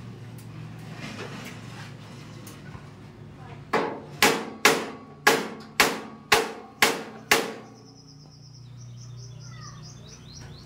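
Hammer striking the metal frame of a tricycle sidecar during welding repairs: eight sharp, ringing blows at about two a second, then it stops.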